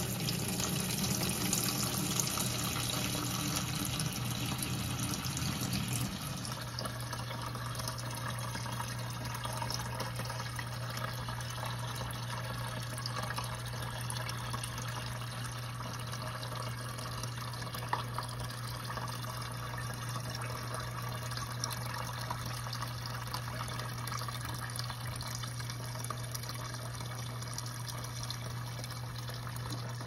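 Stream of tap water splashing into the plastic tub of a mini portable washing machine as it fills, with a steady low hum underneath. The stream drops a little in loudness about six seconds in.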